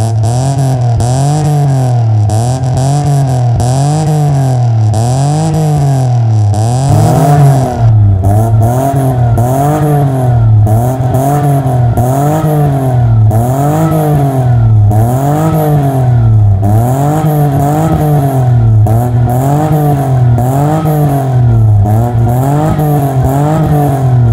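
A 2016 Toyota Wigo's 1.0-litre three-cylinder engine being revved over and over through an aftermarket catback exhaust. The pitch climbs and drops back in a steady rhythm, about once a second.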